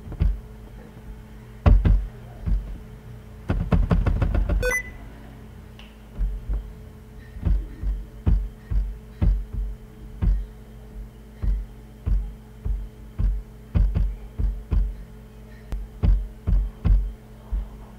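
Computer keyboard keys pressed close to the microphone: a quick flurry of clacks about four seconds in, then steady taps, about one or two a second, through the rest. The Shift key is pressed often enough to bring up the Windows Sticky Keys prompt. A steady low electrical hum runs underneath.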